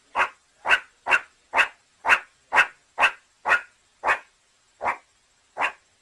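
An animal calling in a steady series of short, sharp calls, about two a second, spacing out slightly near the end.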